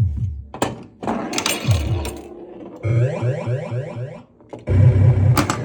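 1979 Williams Gorgar pinball machine in play with its sound working normally: electronic game sound effects with falling sweeps and runs of low, even pulses, over sharp mechanical clacks from the playfield.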